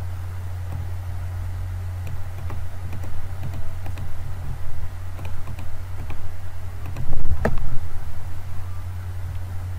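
Computer keyboard and mouse clicks: scattered sharp taps, with one louder click about three-quarters of the way in, over a steady low hum.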